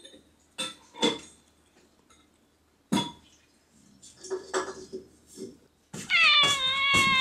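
A few sharp clinks, then a domestic tabby cat lets out one long, loud meow about six seconds in, its pitch wavering slightly.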